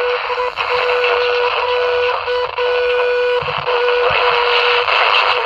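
Mikki 2 pocket AM transistor radio hissing through its small speaker with medium-wave static, and a steady whistle tone that drops out briefly several times.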